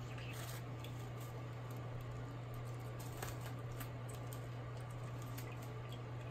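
Tabletop water fountain running: water trickling and dripping over its tiers into the basin in many small, irregular patters, over a steady low hum.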